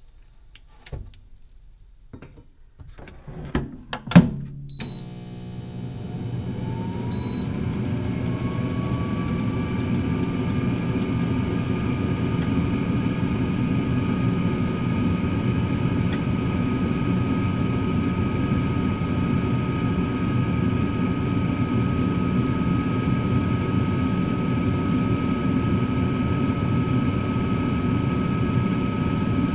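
Cosori air fryer oven being started: a few light clicks and a loud click, then a beep from its control panel about five seconds in. Its fan comes on with a whine that rises in pitch and settles into a steady hum and whine, with a second short beep soon after the fan starts.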